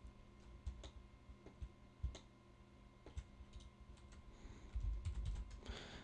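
Scattered faint clicks of a computer keyboard and mouse over a faint steady hum, with some dull low bumping toward the end.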